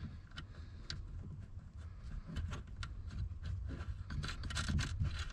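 Small metal clicks and scrapes of a lock washer and nut being fitted by hand onto a switch's threaded stem and bracket. The ticks come irregularly and bunch together near the end, over a low steady hum.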